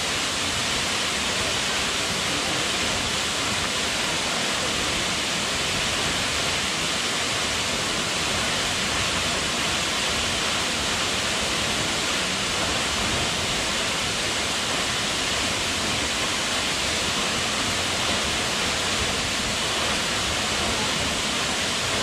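Tall waterfall plunging into a rock pool: a steady, unbroken rush of falling water.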